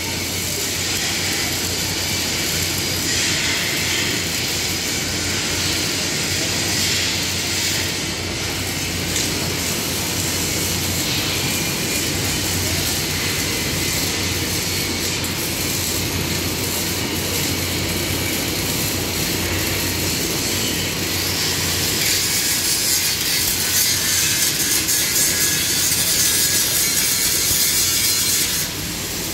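MIG welding on steel square tubing: a continuous hissing arc noise over a low mains hum. It grows a little louder in the last several seconds as an angle grinder throws sparks off the steel, then drops suddenly just before the end.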